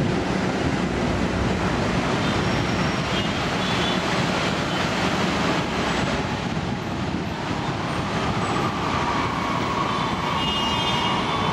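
Taksaka New Generation stainless-steel passenger coaches rolling away over the track: a steady rumble of wheels on rail. Faint thin wheel squeals come in now and then, and a squealing tone holds through the last few seconds as the train takes the curve.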